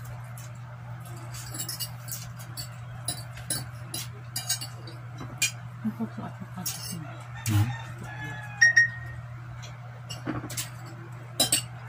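Eating at a table: scattered clicks and taps of forks and spoons on plates, with chewing, over a steady low hum. A short high call, like a bird's, comes about eight and a half seconds in.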